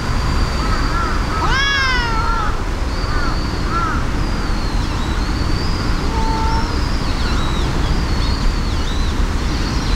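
Stray cats in a fight standoff: one loud wavering yowl that rises and falls about a second and a half in, followed by a few shorter yowls, over a steady low rumble.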